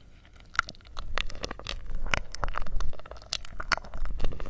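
Close-miked mouth sounds: lips and teeth nibbling and sucking on a thin stick held in the mouth, making many short, irregular clicks. They start about half a second in.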